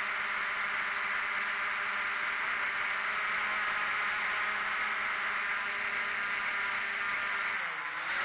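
Quadcopter's electric motors and propellers buzzing steadily, heard close from the camera carried on the drone. Near the end the buzz briefly drops in pitch and level, then picks up again.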